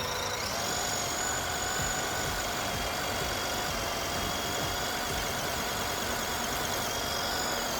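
MN128 RC off-road truck's small electric motor and gearbox whining at full throttle, the pitch rising about half a second in and then holding steady.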